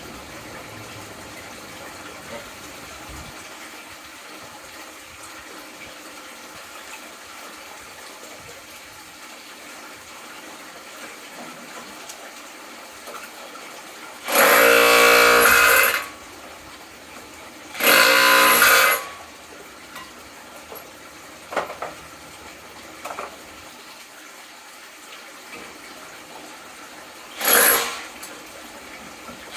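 Impact drill running in short bursts of a second or two, three times in the second half, with a steady motor whine, driving a homemade brake-rotor crusher grinding gold ore.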